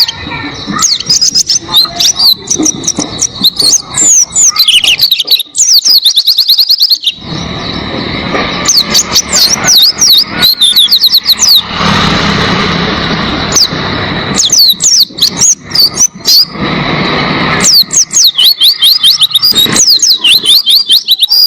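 White-eye (pleci) singing long runs of rapid, high twittering notes in several bursts with short gaps between them. A thin steady high tone and some hiss lie under the song.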